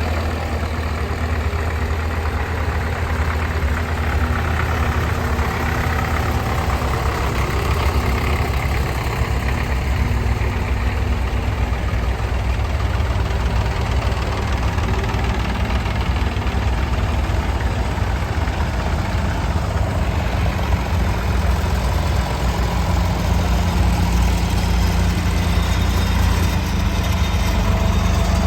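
A heavy engine, likely a tractor's, running steadily at low revs with a deep, even hum.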